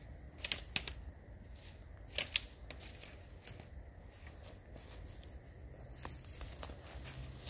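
Dry leaves and twigs crackling and rustling as they are handled on a forest floor, with a few sharp snaps, the loudest about half a second in and again about two seconds in.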